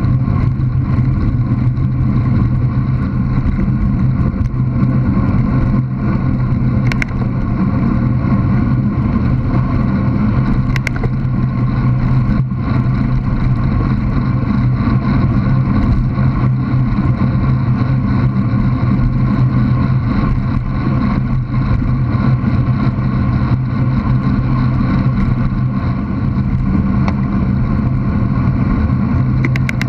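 Steady wind rumble and tyre-on-tarmac road noise picked up by a bicycle-mounted action camera while riding along a lane.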